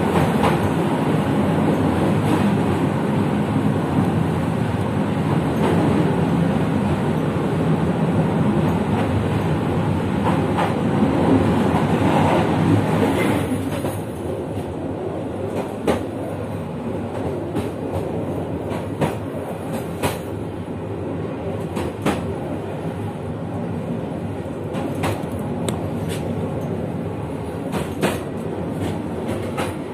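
Passenger train running along the track, heard from the rear of the train: a steady rumble of wheels on rails that eases off about halfway through, with sharp clacks every few seconds over rail joints.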